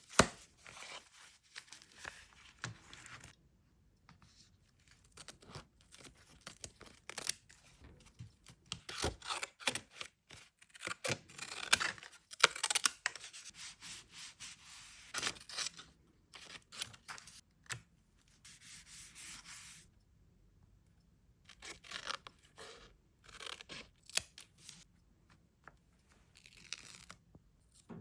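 Small paper scraps being torn, rubbed and handled: irregular crackling tears and rustles with short pauses, and two smoother, steady rubbing passes, one about two-thirds of the way in and one near the end.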